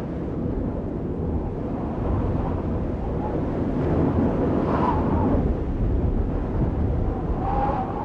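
Rumbling, wind-like whoosh sound effect, a steady low noise that swells slightly, with faint short gliding tones about halfway through and again near the end.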